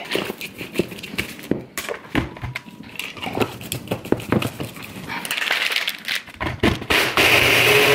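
Plastic clicks and knocks, with ice rattling, as a Ninja personal blender cup has its blade lid screwed on and is turned over onto the motor base. Near the end the blender motor runs loudly for about a second, blending the ice and coffee, then stops abruptly.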